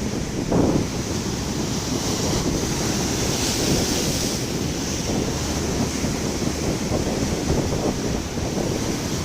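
Sea surf washing on the shore, a steady rushing with a wave swelling up about three seconds in, while wind buffets the microphone with low rumbling gusts.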